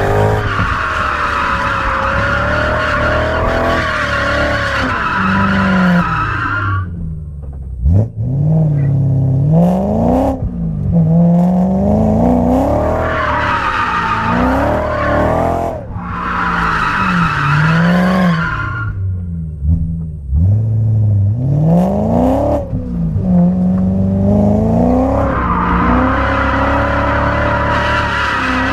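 BMW E92 M3's V8 revving up and down through a drift, heard from inside the cabin, with tyres squealing in several long stretches as the car slides. Twice the revs drop sharply and climb straight back.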